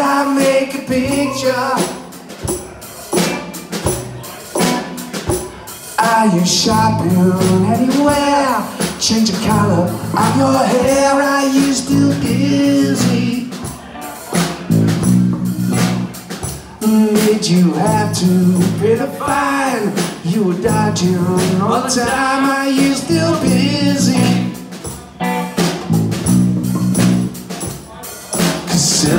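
Live band playing an up-tempo song on electric guitars, bass guitar and drums. It drops quieter for a few seconds near the start, then comes back in at full level.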